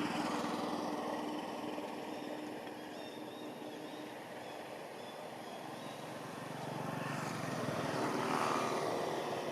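A motor vehicle's engine passing by, swelling loud near the start, fading, then a second swell as another passes near the end.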